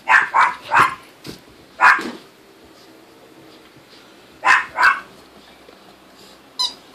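A dog barking in short, sharp barks: three quick ones in the first second, another about two seconds in, a pair about four and a half seconds in, and one more near the end.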